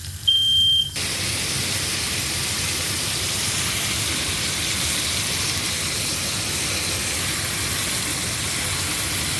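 A smoke alarm gives one last high beep, then about a second in a steady, even sizzling hiss of food frying in a hot pan starts suddenly and holds.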